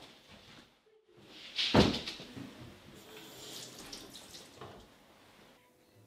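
Kitchen sink sounds: a sharp clatter about two seconds in, then quieter splashing and rattling.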